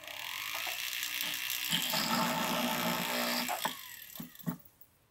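Jeweller's rotary drill handpiece with a 1.6 mm bit drilling a hole through a brass plate. It spins up with a rising whine, drills for about three seconds, then winds down with a falling whine near the end.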